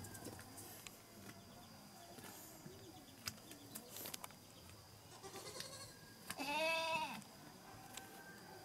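A goat bleats once about two-thirds of the way in, a single call of under a second that rises and then falls in pitch. A few faint clicks come before it.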